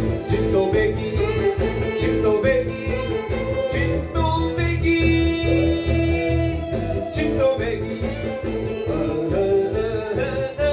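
A man sings a Korean trot song over a backing track with a steady beat and bass line. About halfway through he holds one long note.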